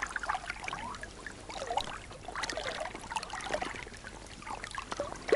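River water trickling and lapping close to the microphone, a low, even water sound broken by many small irregular splashes.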